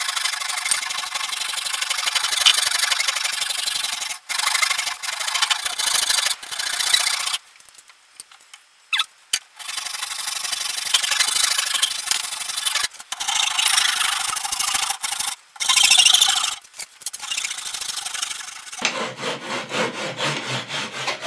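Coarse side of a farrier's hoof rasp filing the corners off wooden canoe-frame parts in repeated rough strokes, pausing for about two seconds a third of the way through.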